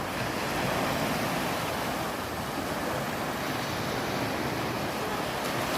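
Mediterranean sea waves washing on the shore, a steady rush of surf.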